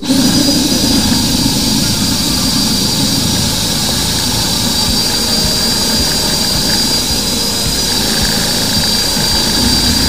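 Electric drain-cleaning machine starting up and running steadily, a constant motor noise with a thin high whine over a dense hiss.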